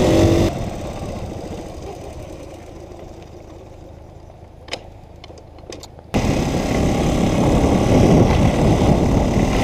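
A 1974 Honda PC50 moped's 49cc engine running with wind noise while riding. About half a second in the noise drops away suddenly to a quieter, fading hum with a few faint clicks, and the loud riding noise comes back suddenly about six seconds in.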